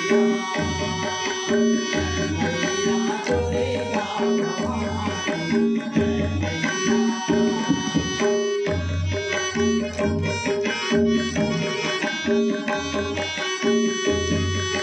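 Tabla played in a steady rhythm, with deep bass-drum strokes recurring under ringing treble strokes, over a harmonium holding sustained chords: an instrumental passage of a devotional bhajan.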